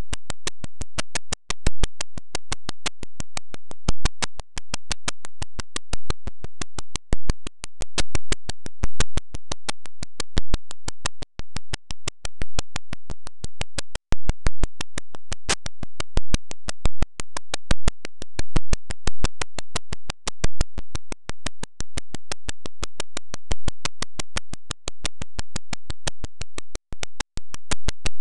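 A steady, evenly spaced electronic clicking beat, about three to four sharp clicks a second, with no change in tempo.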